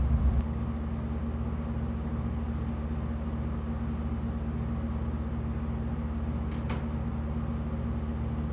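Steady low mechanical hum, with a louder low rumble dropping away about half a second in and a couple of faint clicks.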